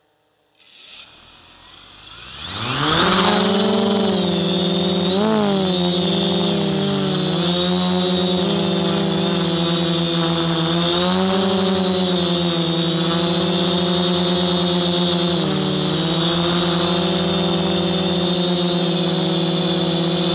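Quadcopter's electric motors and propellers, heard from a camera on the craft: they start up suddenly about half a second in, rise in pitch as it climbs off the ground about two seconds in, then run as a loud steady whine whose pitch shifts up and down with throttle in flight.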